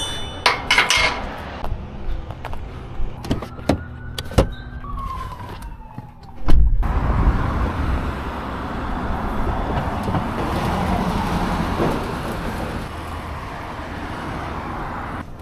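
A few clicks and knocks, then about six and a half seconds in a vehicle engine starts with a sudden loud burst and keeps running steadily.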